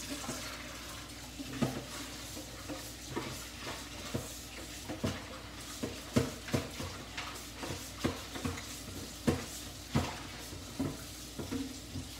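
A container being washed out by hand in a kitchen sink: a string of irregular knocks and clatters as it is handled and scrubbed.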